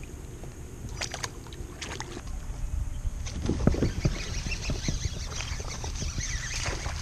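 Water sloshing and splashing around a fishing kayak, with low rumble on the microphone. It gets louder and busier about three seconds in, with several short thuds and splashes.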